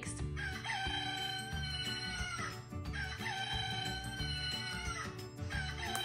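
Plush rooster toy's sound box playing a recorded rooster crowing, twice, each crow a long call that drops in pitch at the end.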